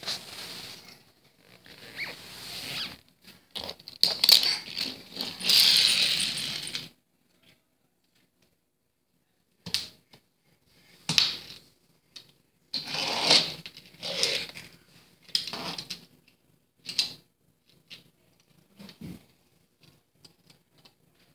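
Small toy cars knocking and scraping on a hardwood floor, with a crawling baby's hands patting the wood: several seconds of rustling and scraping at first, then a run of separate clicks and knocks.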